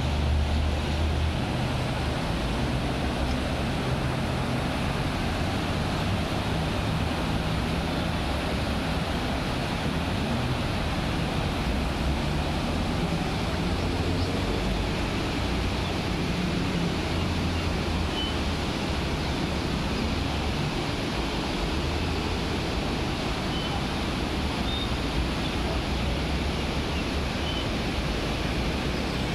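Rain-swollen river rushing steadily under a bridge, a continuous heavy water noise, with a low rumble underneath that rises and falls.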